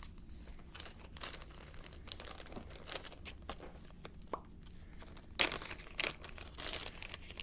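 Crinkly material such as paper or plastic being handled: irregular rustling and crackling, loudest about five and a half seconds in.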